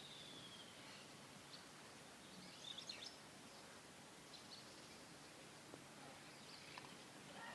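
Near silence with faint bird calls: a thin falling whistle at the start, a short burst of chirps about three seconds in, and a few more faint chirps near the end.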